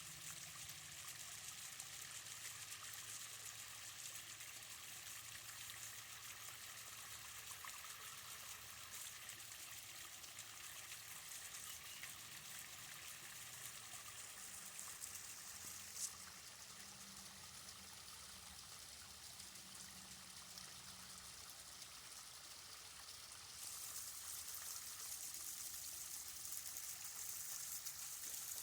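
Waterfall: a faint, steady rush of falling water, with one sharp click about halfway through. It grows louder a few seconds before the end.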